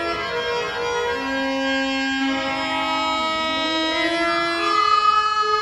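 Indian classical-style stage music: a slow melody of long held notes that step and slide from one pitch to the next.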